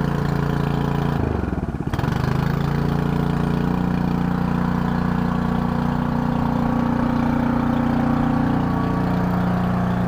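Old snowblower's small gas engine running just after being primed to start. About a second in it stumbles and its speed dips sharply for a moment, then it picks back up and its pitch rises slowly as it settles into running.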